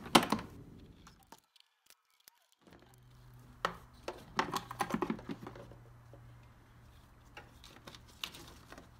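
Scattered light clicks and taps of hands and a small tool taking the screws out of a truck's plastic airbox lid and lifting the lid. The sound drops out completely for about a second, starting about a second in, and a faint steady hum runs underneath from about three seconds in.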